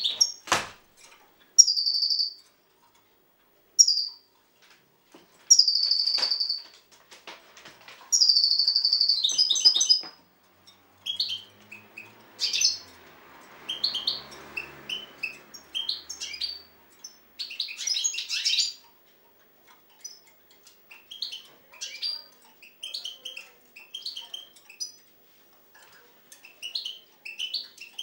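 Caged European goldfinch singing: a run of buzzy trills about a second long each in the first ten seconds, then quick twittering and chirping notes. A single sharp click sounds just after the start.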